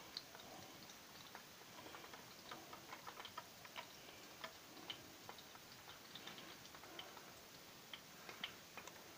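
Faint, irregular small clicks and wet ticks of hands handling raw chicken pieces, dipping them in egg wash and pressing them into breadcrumbs.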